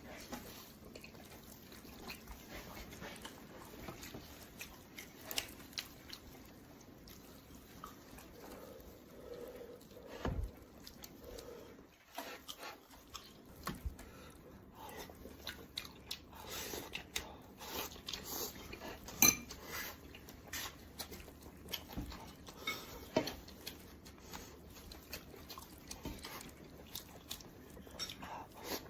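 Close-miked eating of roasted pork head: chewing and biting with many short wet clicks and smacks, and now and then a clink of dishes or utensils. One click about two-thirds of the way through is louder than the rest.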